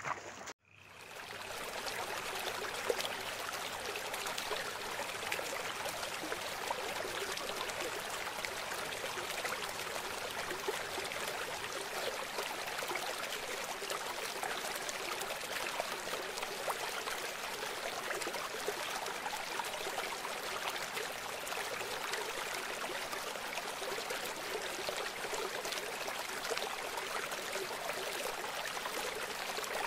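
Muddy rainwater runoff from a cloudburst rushing steadily along a flooded dirt track. It comes in after a brief gap near the start.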